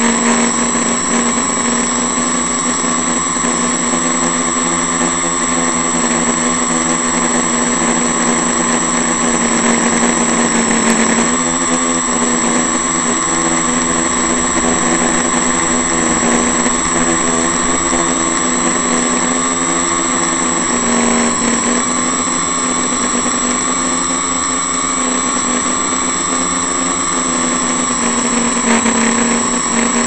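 Quadcopter's electric motors and propellers running steadily in a hover, heard from the onboard camera. A constant high-pitched whine sits over the motor hum, whose pitch wavers a little as the flight controller makes small throttle corrections.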